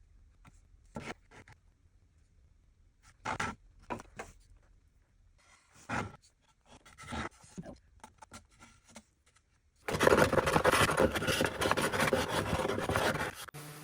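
A few short, scattered scrapes and rubs on the wooden cutting board, then about ten seconds in a power sander runs loudly against the board, sanding off the cured black filler, and stops just before the end.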